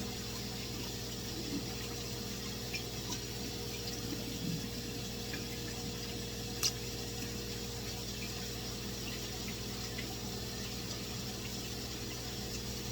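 Tap water running steadily into a sink, with a few faint clinks and one sharp clink about halfway through.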